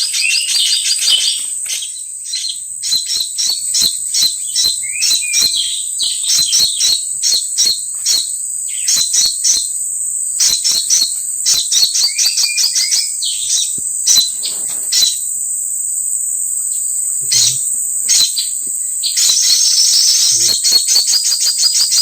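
Small birds chirping and twittering in quick, repeated short notes over a steady high-pitched insect drone.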